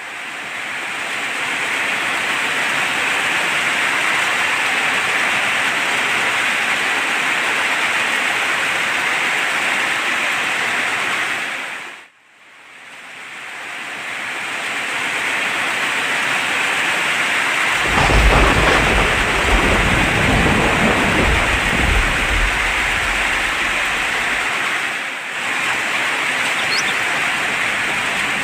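Steady heavy rain hiss that fades out and back in about twelve seconds in. Later a low rumble of thunder rolls for about six seconds, loudest as it begins.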